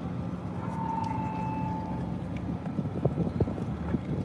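Steady low hum of an idling vehicle engine. A brief high steady tone sounds about a second in, and a run of faint clicks follows near the end.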